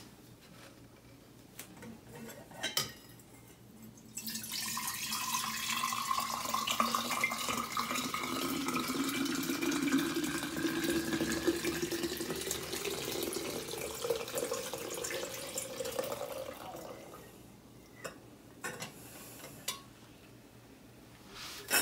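Pork broth poured from a glass measuring jug through a stainless steel funnel into a large glass mason jar: a steady pour lasting about thirteen seconds, its pitch rising as the jar fills. A sharp glass clink comes before the pour, and a few light clinks follow near the end as the funnel is handled.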